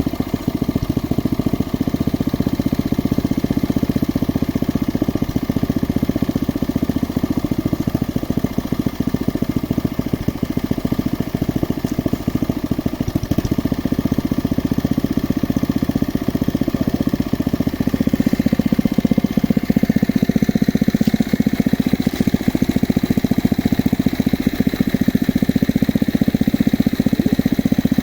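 Geological exploration drilling rig running steadily under engine power, with a rapid even pulse. About two-thirds of the way through it grows slightly louder and a faint high whine joins in.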